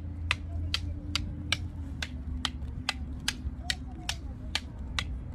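Arnis sticks clacking together in a steady sinawali striking rhythm, about two to three sharp clacks a second. Under it runs a steady low rumble of wind on the microphone.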